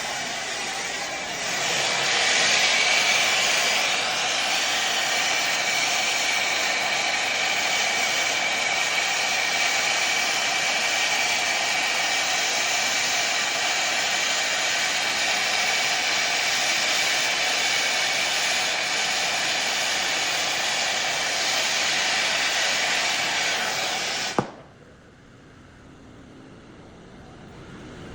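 Acetylene torch with a large A-32 tip burning steadily, a loud even hiss with a faint steady whistle, as it heats a 3-inch copper pipe joint up to brazing temperature. The sound stops abruptly with a click about 24 seconds in.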